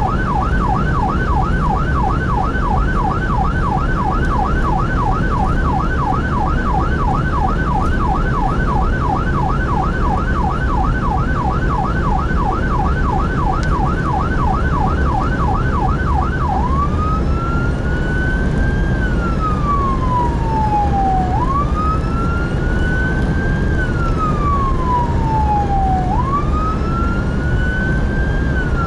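Emergency vehicle's electronic siren running while driving to a call. It sounds a fast yelp of about three sweeps a second, then a little past halfway switches to a slow wail that rises and falls about every five seconds. Steady engine and road rumble lies underneath, heard from inside the cab.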